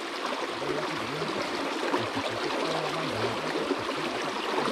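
Shallow river water rushing steadily over and around a pile of logs, breaking white in a small riffle.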